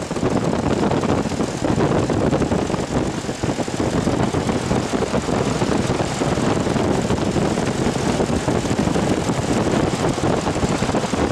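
A warmed-up 1979 Toyota Land Cruiser FJ40's inline-six petrol engine idling steadily.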